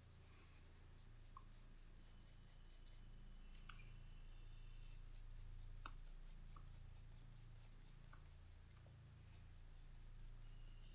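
Pencil scratching on sketchbook paper in a quick, even run of short shading strokes, about four a second, faint. The strokes start about a second and a half in and thin out near the end.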